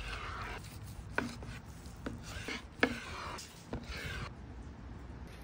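Long slicing knife sawing through a prime rib roast, rasping through the crisp seasoned crust in several strokes, with a few sharp knocks in between.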